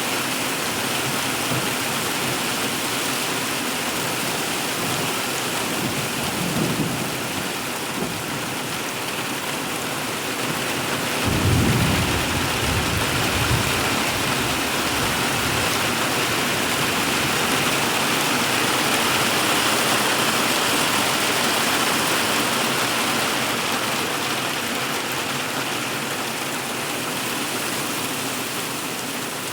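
Heavy hail pelting a polycarbonate roof in a dense, steady, loud clatter, with a low rumble swelling in about a third of the way through.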